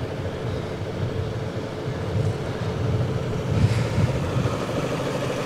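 1992 Nissan March's 16-valve twin-cam four-cylinder engine idling steadily and quietly, heard from the open engine bay, with a little wind on the microphone.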